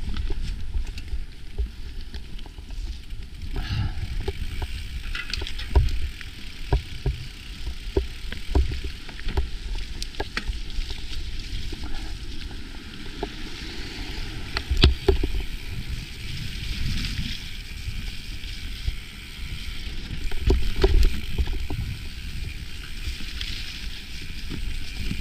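Mountain bike rolling along a dirt singletrack: steady tyre and rushing-air noise, with frequent sharp clicks and rattles from the bike as it rides over bumps and roots.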